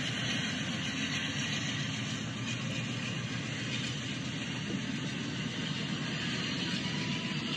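LEGO battery-powered train running steadily along plastic track, a continuous whir of its motor and rolling wheels.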